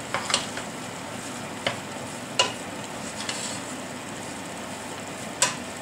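Meat filling with potatoes frying in a pan with a steady sizzle while it is stirred, the utensil knocking sharply against the pan about five times.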